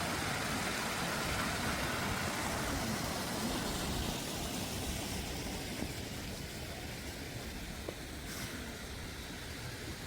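Steady outdoor background noise with a low rumble, like distant traffic, easing a little in the second half.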